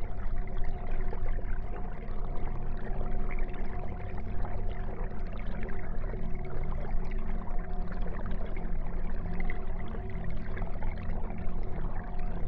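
Aquarium water trickling and splashing steadily, with a steady hum underneath.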